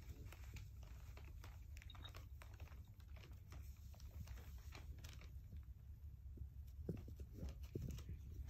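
Faint, scattered crinkling of a thin plastic shopping bag as a tabby cat shifts around inside it, a little busier near the end as she starts to climb out.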